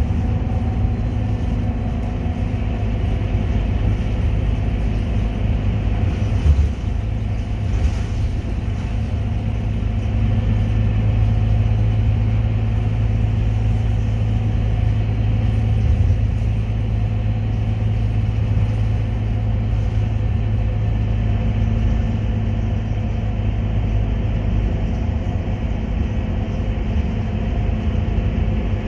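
Inside a Scania K230UB city bus cruising on the road: steady low engine drone mixed with road noise, swelling slightly partway through. A brief knock sounds about six and a half seconds in.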